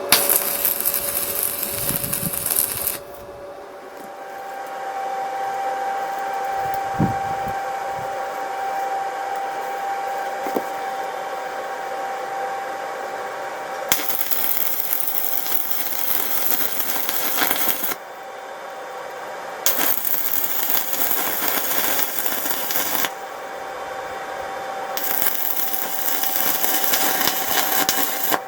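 Electric power tool working steel: a steady motor whine, broken four times by bursts of harsh, hissing noise a few seconds long as the tool bites into the metal. A few dull knocks come around a third of the way in.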